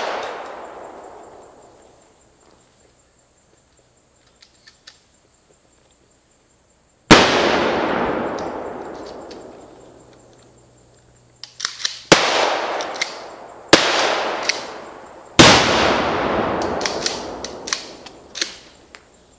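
Pyrotechnic IED simulator charges going off one after another. There are three heavy blasts, about seven, twelve and fifteen seconds in, each followed by a long, slowly fading echo, with bursts of sharp cracking pops between them. It opens on the fading tail of an earlier blast and a near-quiet stretch.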